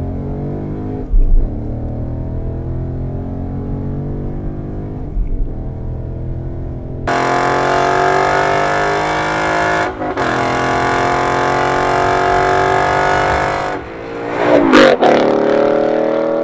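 Ford Mustang GT's 5.0-litre V8 through a Borla ATAK exhaust, accelerating hard with its pitch climbing. At first it is muffled, as if heard inside the cabin, with two brief thumps. About seven seconds in it becomes much louder and clearer from outside, with a short break around ten seconds, then the car passes close by and the pitch drops as it moves away.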